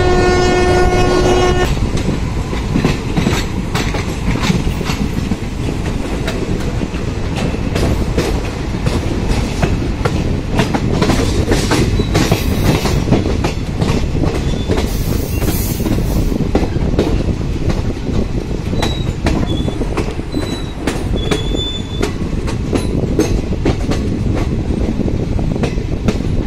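A passenger train running at speed: loud, steady rumble and rattle of wheels clattering over rail joints. A train horn sounds one note for about a second and a half at the start, and a few short, faint high squeals come about three-quarters of the way through.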